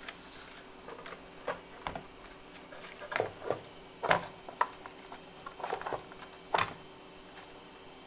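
Irregular light clicks, taps and knocks of hands handling a 3D printer while loading filament, over a faint steady hum.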